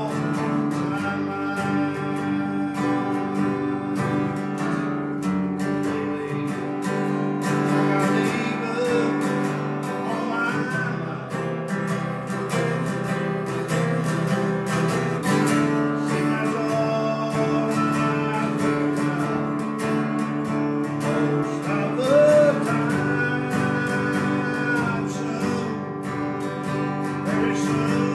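Acoustic guitar strummed steadily, with a man singing a gospel song.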